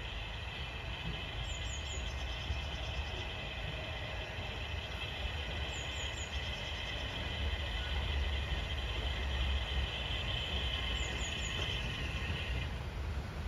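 Heritage railway train running: a steady low rumble with a high-pitched whine over it that stops shortly before the end.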